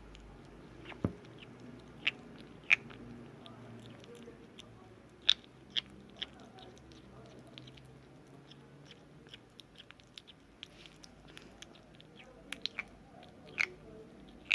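Small kitten chewing and biting its food: irregular sharp crunches and clicks, a dozen or so, with pauses between them.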